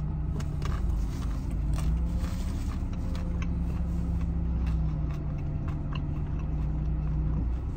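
Steady low hum of a parked car running, heard from inside the cabin. Over it, a man chews food with scattered small clicks.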